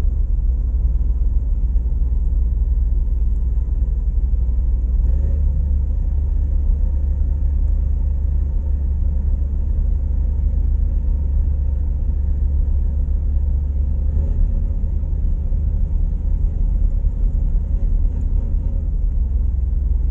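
Steady low rumble of a river vehicle ferry's engine, heard from its deck.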